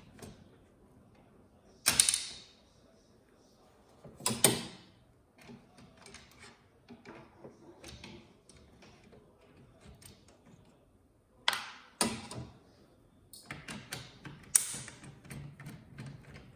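Clicks and knocks from taking apart a flat-screen TV's plastic button panel by hand. About five sharp knocks are spread through, with faint scattered ticks and rattles between them.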